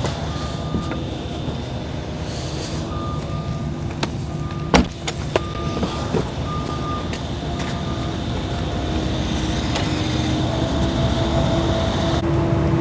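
Diesel engine of a mini excavator running steadily, its backup alarm beeping on and off through the first half. Two sharp metallic clanks come about five seconds in, and the engine grows louder toward the end.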